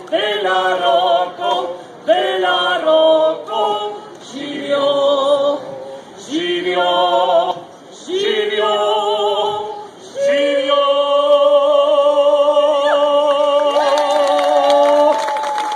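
A woman and a man singing a birthday song together without instruments, amplified through a PA, in short phrases and then one long held final note from about ten seconds in. Applause starts just before the end.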